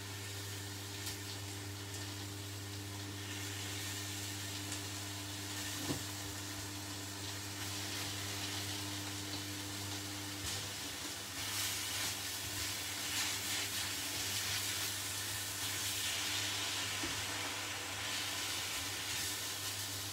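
Braising steaks sizzling steadily as they brown in their own fat in a dry frying pan, the sizzle growing louder from about halfway through, over a steady low hum. A single sharp clink about six seconds in.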